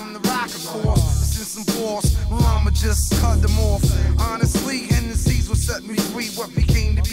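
Hip hop track: a rapper's verse over a drum beat with heavy bass.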